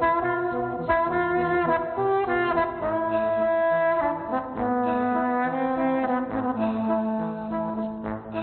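Trombone playing held melody notes over a repeating low bass figure, the parts layered at once through a live looper.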